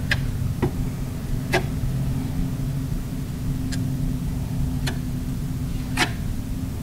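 A filler knife smoothing sticky filler over a steel door. It is heard as about six short, sharp scrapes and taps, a second or so apart, the loudest near the end, over a steady low hum.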